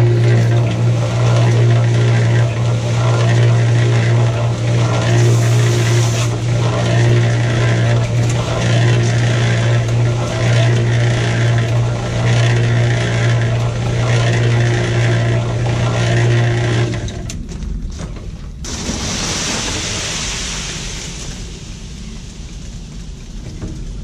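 Small portable electric cement mixer running: the motor hums steadily while the drum tumbles wet concrete mix with a rhythmic swish. The hum stops about three-quarters of the way through, followed by a short rush of scraping noise.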